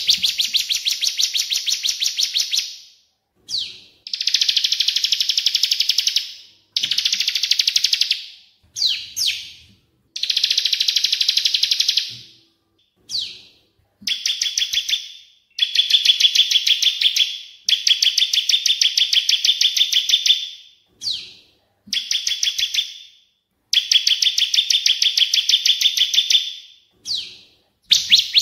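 Recorded songbird song: rapid, evenly pulsed high-pitched trills in bouts of two to three seconds, broken by short pauses and brief single chirps. It is a masteran track of cililin and ciblek (bar-winged prinia) song, played to tutor caged songbirds.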